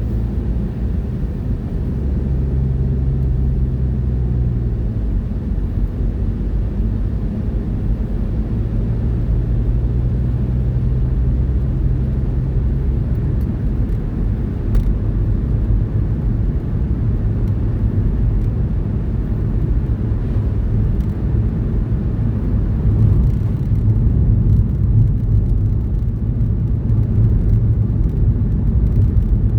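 Truck engine and road noise heard from inside the cab while driving: a steady low drone, with the engine note shifting in pitch a few times.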